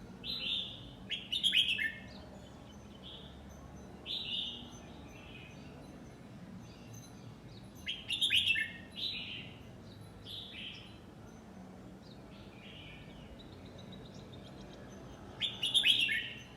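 A red-whiskered bulbul singing short, bright warbled phrases, the three loudest bursts coming about seven seconds apart with softer calls in between.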